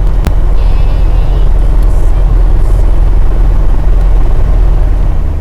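Light aircraft's piston engine and propeller coming up to full takeoff power, then running loud and steady as the takeoff roll begins.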